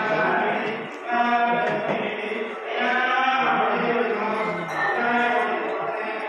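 Hindu mantras chanted on a near-steady pitch in repeated phrases about two seconds long, with brief breaks between them.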